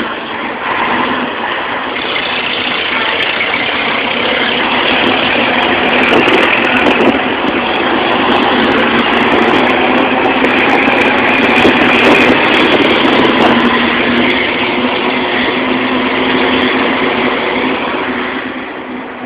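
Scania 113H truck's 11-litre six-cylinder diesel running loud through a straight-through exhaust with no muffler, building to its loudest through the middle and easing off near the end.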